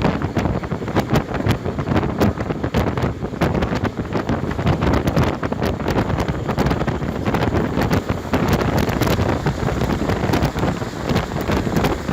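Moving train running along the track, a steady low rumble with heavy wind buffeting and crackling on the microphone.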